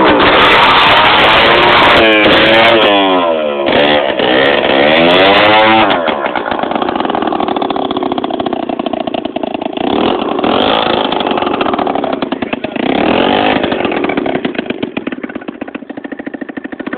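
Piaggio Free scooter's small two-stroke engine revving. It is held high at first, then revved up and down several times. After about six seconds it drops to lower revs with a couple of short blips, and near the end it settles toward a pulsing idle.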